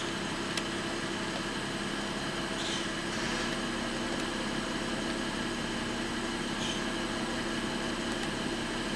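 BMW N55 turbocharged straight-six idling steadily.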